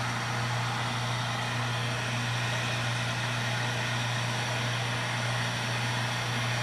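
Heat gun running steadily, a motor hum under a blowing hiss, warming a sticker on a bike frame to loosen it for peeling.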